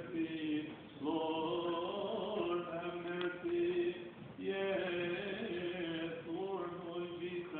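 A man chanting a liturgical hymn in long, held notes, with short breaks about one second and four seconds in.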